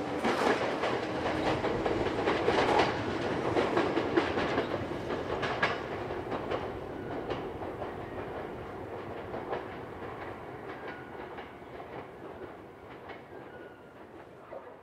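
Ryutetsu Nagareyama Line two-car electric train running away along the track. Its wheels click over the rail joints, and the sound fades steadily as the train recedes.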